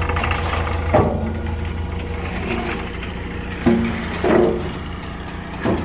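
Diesel truck engine idling with a steady low hum, broken by a few short knocks, the sharpest about a second in and another near the end.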